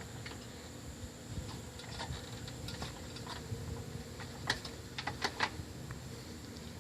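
A scatter of light clicks and taps, with a few sharper ones close together about four and a half to five and a half seconds in, over a faint steady hum.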